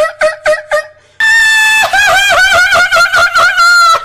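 A man making silly high-pitched vocal noises. First comes a quick run of squeaky giggle-like yelps, about five a second. Then, a little over a second in, a loud, long falsetto squeal that warbles up and down in pitch.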